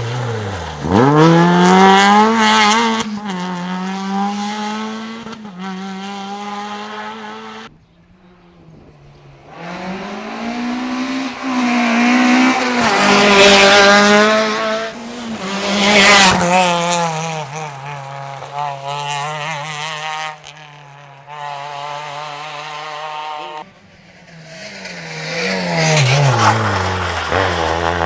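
Rally car engines revving hard and shifting up through the gears, the pitch repeatedly climbing and dropping as the cars pass, in several separate passes that change abruptly.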